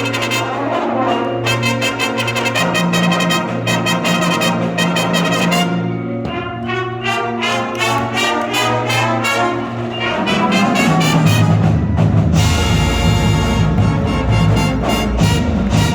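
High school marching band playing a brass-led passage, with trumpets and trombones on held and repeated notes. About ten seconds in, the sound grows fuller and louder, with deep low brass and a bright crash-like wash above.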